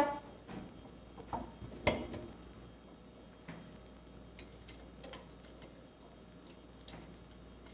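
Sparse light clicks and taps of small metal parts and tools, the sharpest about two seconds in and fainter ticks after, from valve spring removal work on a cylinder head.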